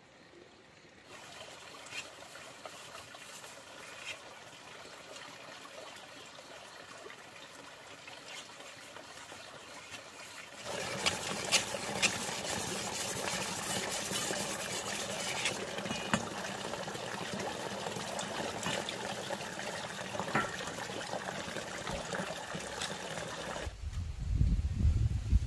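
A kitchen knife being sharpened on a wet whetstone: steel scraping on the wet stone with scattered sharp clicks, louder from about ten seconds in. A fainter, even noise comes before it, and a low rumble starts near the end.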